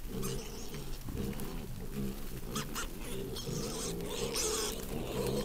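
Wild boar grunting: a run of short, low grunts repeated one after another, as a sow with young piglets forages.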